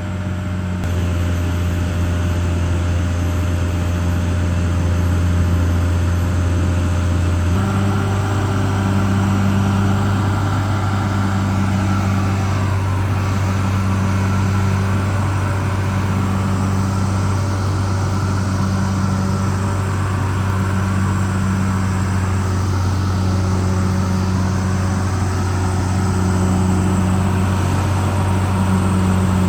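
Caterpillar D6R XL bulldozer's diesel engine running steadily under work, a deep even drone whose note shifts about seven seconds in and then holds.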